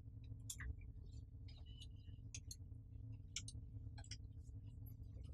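Quiet room tone: a low steady hum with faint, irregular small clicks and ticks scattered through it.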